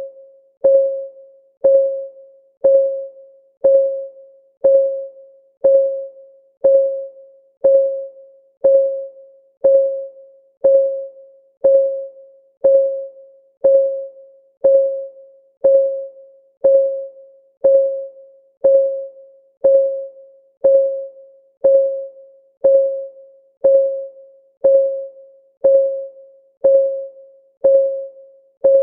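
Clock ticking sound effect of a countdown timer: an even tick about once a second. Each tick is a sharp click with a short, clear ringing tone that fades quickly.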